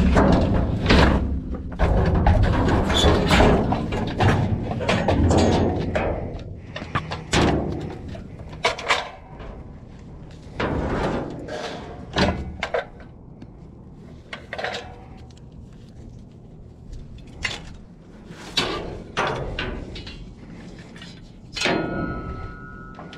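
Irregular knocks, thuds and clatter of items being handled and set down, dense and heavy for the first six seconds, then sparser single knocks.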